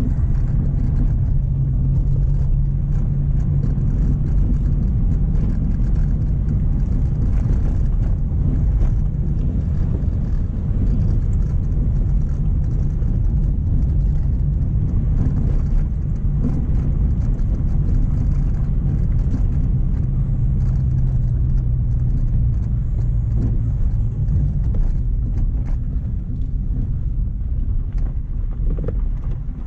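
Mk1 Renault Clio driving at low speed, a steady engine drone with tyre and road noise. The engine note rises and falls a few times as the car is eased along an uneven lane.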